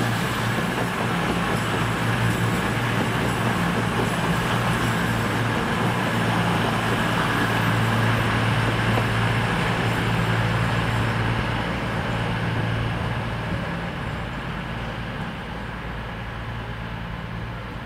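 A CrossCountry Class 220 Voyager diesel-electric train's underfloor diesel engines running as it moves away along the track: a steady low engine hum over the rumble of wheels on rail. It fades over the last several seconds.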